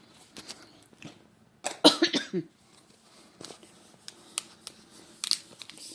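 A person coughs once, briefly, about two seconds in, amid soft scattered clicks and rustles of handling.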